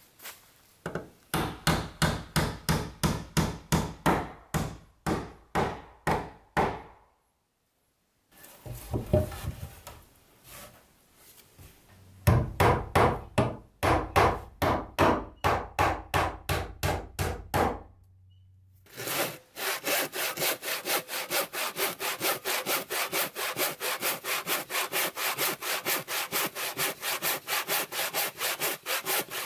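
Quick, even strokes of a hand tool on wooden boards in two runs of about three a second, fitting a claw hammer nailing up cladding. From about two-thirds through, a handsaw cuts a wooden board at a steady rhythm of about four strokes a second.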